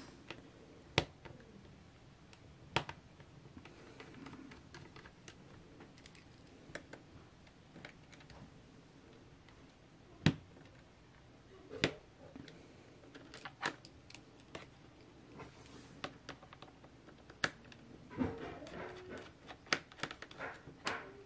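Scattered light clicks and taps of a small screwdriver on the two battery screws in the plastic underside of a Lenovo ThinkPad T440p, with a denser run of clicking and handling about eighteen seconds in.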